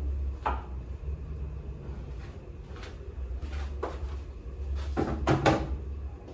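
Knocks and clatter of kitchen items being put away, a few separate bumps with the loudest pair about five seconds in, over a steady low hum.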